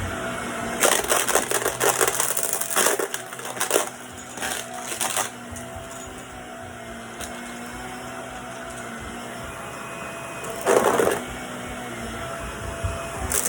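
Vacuum cleaner running with a steady motor hum, broken by short bursts of rattling hiss several times: early on for about two seconds, around five seconds in, and again near eleven seconds.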